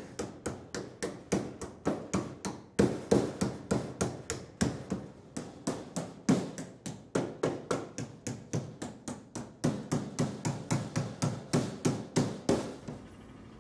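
A hand hammer striking a Datsun 240Z's fender in a fast, steady run of blows, about three to four a second, stopping about a second before the end.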